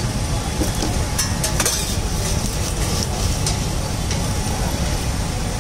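Steady background din of a busy roadside food stall: low traffic rumble with a faint sizzle, and a few short clicks about a second and a half in.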